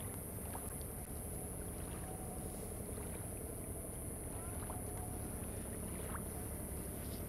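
Steady low background rumble with a faint hiss and a few faint ticks, with no distinct event.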